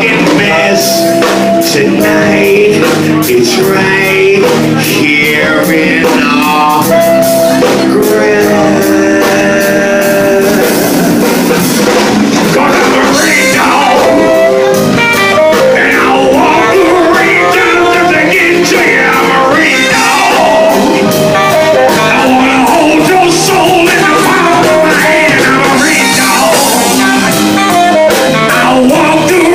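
Live band playing a blues-rock passage, led by guitar over a drum kit.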